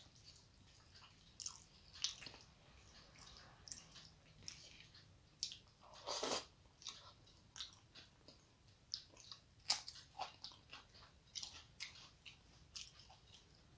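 A person chewing mouthfuls of rice and curry eaten by hand, close to the microphone: irregular soft wet clicks and smacks, with one longer, louder mouth sound about six seconds in.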